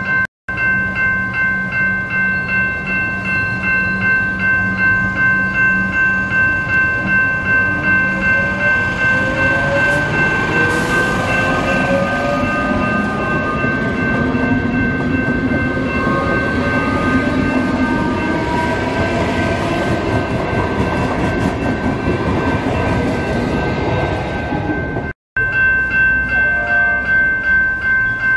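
Level crossing warning bells ringing steadily, their tones pulsing evenly. A Metro Trains electric suburban train passes through the crossing with wheel noise and rising whines from its electric traction motors. The bells keep ringing once the train has gone.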